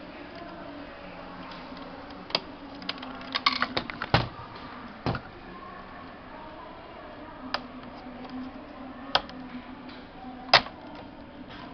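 Sharp plastic and metal clicks and knocks as the parts of an Epson T13 printer's sheet-feeder mechanism are handled and fitted with a screwdriver. There is a quick cluster of clicks a few seconds in, then single clicks spaced a second or two apart, the loudest one near the end.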